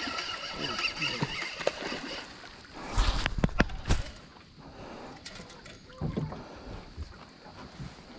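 A cluster of sharp knocks and low thumps about three to four seconds in, typical of gear and feet striking a metal boat hull, with a few softer knocks later and voices in the first couple of seconds.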